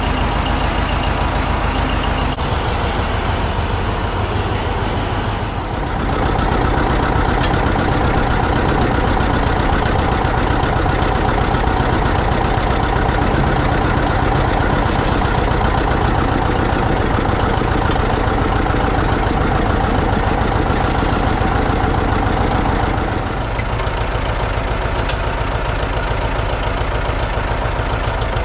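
A vehicle engine running steadily, louder from about six seconds in until about twenty-three seconds in, then easing back.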